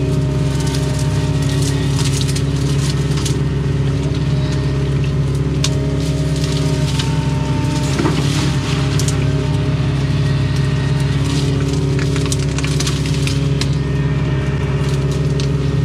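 Doosan excavator's diesel engine running steadily under load while digging, with scattered crunches and clicks of the bucket working dirt and debris, a cluster of them about halfway through.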